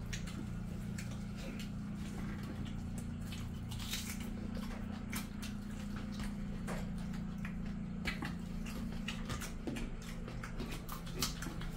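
Two people eating rice and chicken curry with their hands: soft wet squelches and clicks of fingers mixing rice on steel plates, with chewing and lip smacks, over a steady low hum.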